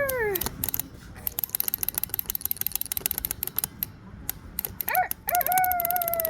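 Rapid, dense mechanical clicking like a ratchet for about four seconds, then near the end a rooster-style crow: a short rising note followed by one long falling note.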